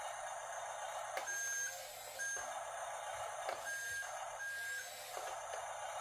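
Remote-control toy bulldozer running, with a motor-and-gear whir and a few clicks. Four short electronic beeps at one steady pitch sound over it, from about a second in to near the end.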